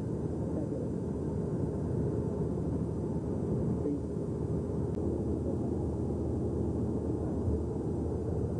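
Steady low rumble of engine and road noise inside a moving bus, with a faint click about five seconds in.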